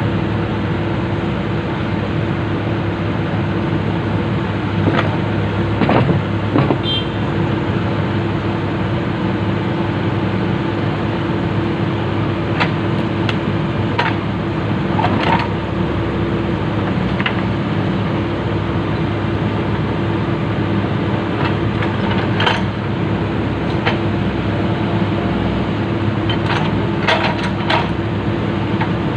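Komatsu PC200 excavator's diesel engine running steadily, with a scattering of short, sharp metallic knocks.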